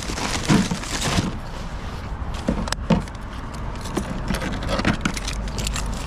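Paper bakery bag rustling and crinkling as it is handled and pushed into a plastic motorcycle top box, with a few sharp knocks, the loudest near three seconds in, over a steady low rumble.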